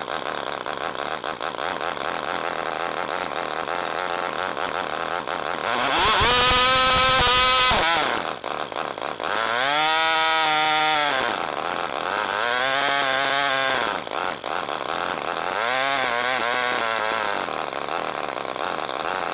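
Murray riding lawn mower engine idling, then revving up and dropping back four times, the first rise the loudest and longest. It is surging at idle, which the owner hopes a thorough carburetor cleaning will cure.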